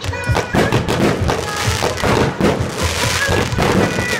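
Fireworks going off in quick succession: a dense run of bangs and crackles as comets and rockets are launched.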